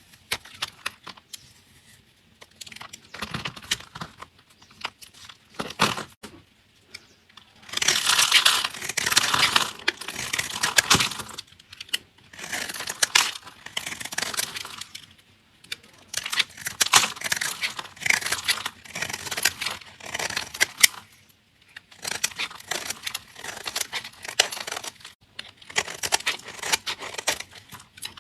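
A blade cutting through crunchy soap: crisp crackling and crunching in strokes of one to a few seconds with short pauses between, the loudest run about eight to eleven seconds in.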